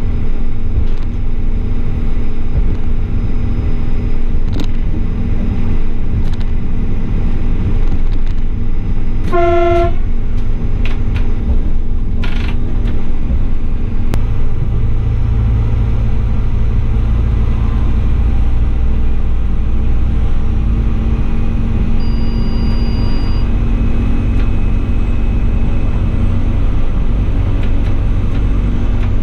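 Class 840 RegioSpider diesel railcar running along the line, heard close to the wheels and bogie: a steady rumble of wheels on rail that grows heavier about halfway through, with one short horn toot about ten seconds in.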